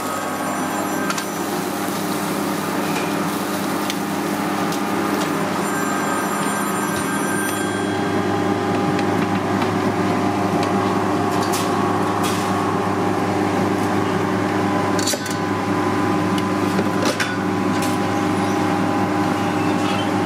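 Steady hum of commercial kitchen machinery, such as the exhaust hood fans over the grill, with a handful of sharp knocks in the second half.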